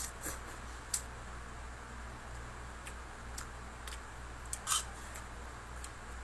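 A person eating instant noodles with a spoon and fork: scattered sharp clicks of the utensils on the plate, with a slurp of noodles right at the start. A steady low hum runs underneath.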